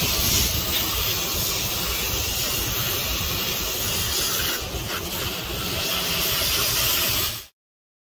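Garden hose spray nozzle spraying water onto an air conditioner's outdoor condenser coil, rinsing cleaner off the dirty coil: a steady hiss of water that stops abruptly near the end.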